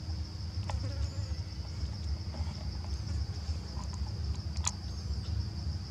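Insects in the forest making a steady high-pitched drone, over a low rumble, with two sharp clicks: one about a second in and one about a second before the end.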